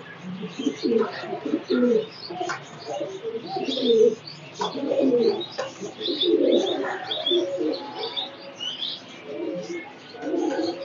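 Domestic high-flyer pigeons in a loft cooing in repeated low murmurs, with short high chirps scattered throughout.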